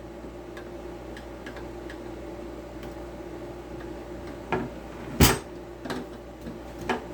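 Light ticks and knocks of a screwdriver and a circular saw being handled while a small screw is undone, with four sharper knocks, the loudest about five seconds in. A steady low hum runs underneath.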